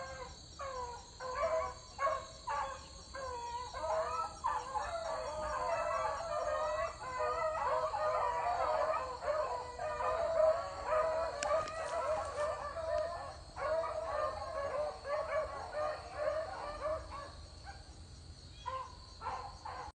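Pack of beagles baying on a rabbit's trail: separate bays at first, then several hounds crying together continuously from about four seconds in, thinning back to single bays near the end.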